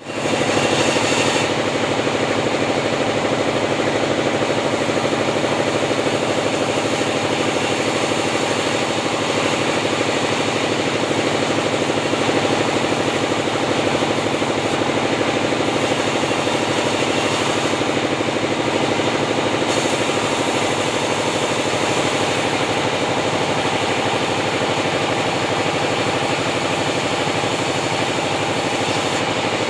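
Two-stroke chainsaw running steadily at high speed, cutting timber into a square beam.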